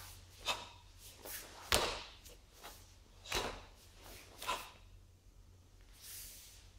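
Sharp snaps and thuds of a karate kata performed barefoot: the gi cracking with fast techniques and feet landing on the hall floor. Four strong ones, the loudest about two seconds in.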